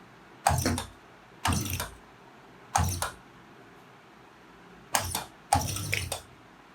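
Homemade air compressor, a car AC compressor belt-driven by an electric motor, switched on in five short bursts; each is a rushing, hissing gush with a low hum that dies away quickly. It is spitting out the oil poured inside it.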